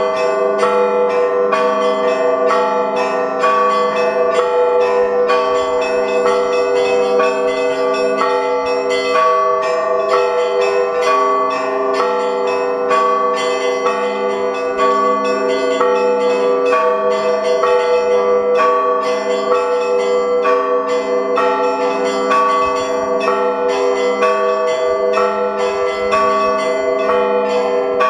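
Russian Orthodox monastery bells rung in a continuous peal (zvon). Small bells are struck quickly and repeatedly over the lingering tones of larger, deeper bells.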